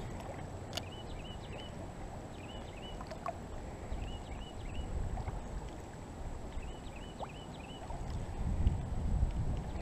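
Low, steady outdoor rumble on an action-camera microphone, swelling for a moment near the end. Over it, a bird gives short series of three or four quick, high chirps every couple of seconds, with a few faint clicks between.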